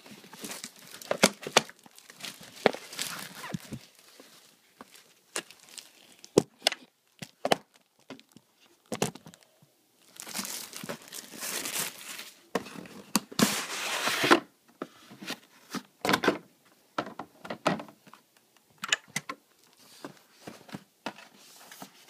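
Handling and unpacking a cardboard software box: clear plastic wrapping crinkling and tearing, with scattered sharp taps and knocks as the box is moved about. There are longer stretches of crinkling about halfway through.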